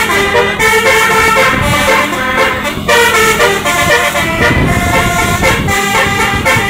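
A bus's 'Basuri' telolet horn, a multi-tone musical horn, playing a tune note after note, with the bus's engine running underneath.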